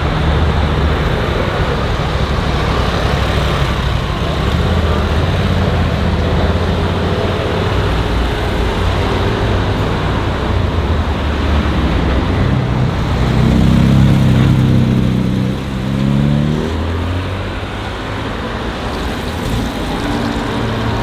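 Car engines running in street traffic, a steady low hum. About 13 seconds in, one engine gets louder and then rises in pitch.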